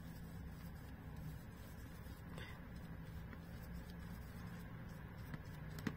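Soft scrubbing swish of a large brush spreading wet gouache across paper in back-and-forth strokes, over a faint steady low hum.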